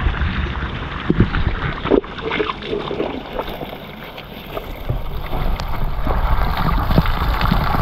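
Water pouring steadily from a pipe onto stones and splashing, with wind rumbling on the microphone for the first couple of seconds.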